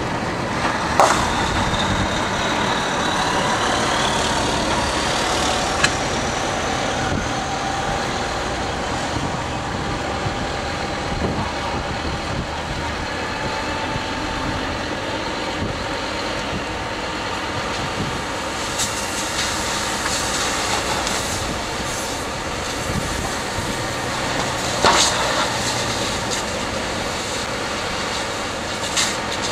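A heavy vehicle's engine running steadily. Over it come a few sharp cracks: one about a second in, another near six seconds, and a cluster of pops and cracks later on.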